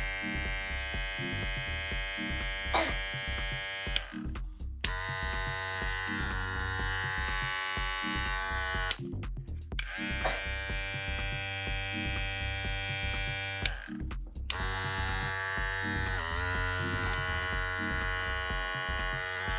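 A VGR all-metal hair clipper and a Kemei 2609 clipper running in turn, each motor giving a steady electric hum with many overtones. It comes in four stretches separated by three brief breaks. Background music plays under it.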